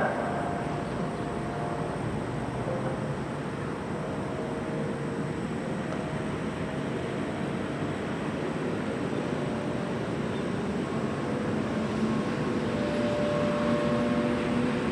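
Road traffic: a steady rush of passing vehicles, with faint engine tones and a vehicle drawing closer near the end.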